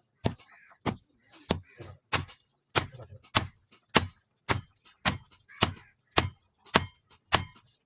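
Hammer blows on steel leaf-spring stock over an anvil, in an even rhythm of about one and a half to two strikes a second. Each blow rings high and fades before the next.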